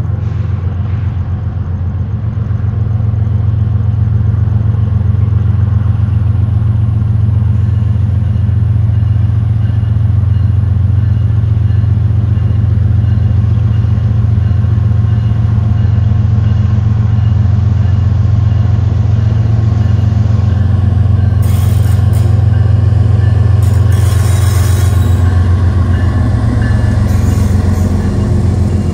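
GE ES44C4 diesel-electric locomotives pulling a freight train, their V12 diesel engines working under load with a deep, steady, pulsing drone that swells over the first few seconds as they approach. From about two thirds of the way in, a hiss of wheels on rail joins in as the units pass close by.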